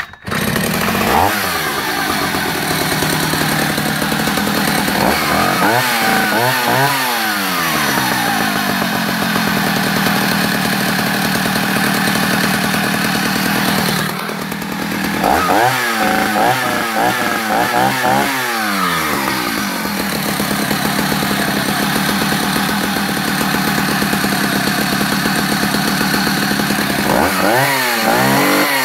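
Vintage Husqvarna B65 two-stroke chainsaw running just after a cold start, having sat three weeks unstarted. It runs steadily, and its throttle is blipped up and down in quick bursts several times, about five seconds in, again about fifteen seconds in, and near the end.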